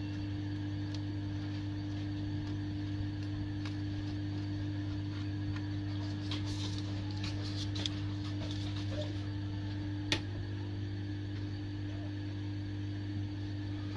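A steady low electrical hum with a few faint clicks and taps as components on a motherboard are worked on, and one sharp click about ten seconds in.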